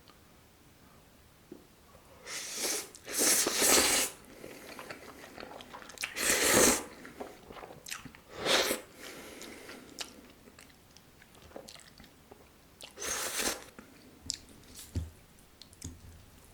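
Close-miked eating sounds: a mouthful of carbonara Buldak noodles with chewy octopus being bitten and chewed. Four loud noisy bursts stand out, about two, six, eight and a half and thirteen seconds in, with quieter chewing clicks in between.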